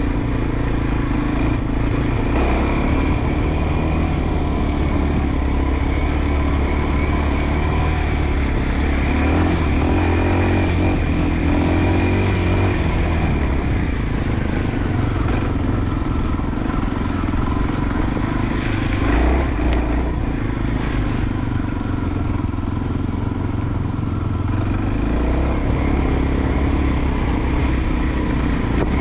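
Enduro dirt-bike engine running steadily under way, its pitch rising and falling a few times with the throttle.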